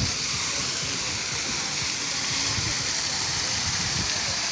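Falling water of a waterfall rushing steadily.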